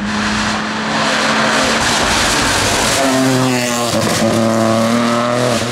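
Peugeot 208 rally car engine running hard at high revs as it approaches. About three and a half seconds in the revs drop away as it brakes into the bend, then climb again as it accelerates out.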